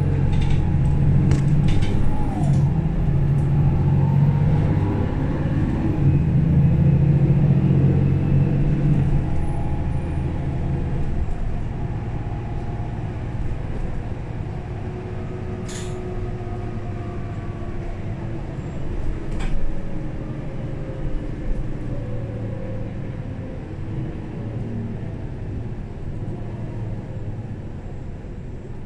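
Mercedes-Benz O530 Citaro city bus under way, heard from inside the passenger cabin. Its diesel engine runs hard and loud for about the first ten seconds, then eases to a quieter, steady running rumble. Two short clicks come a little past halfway.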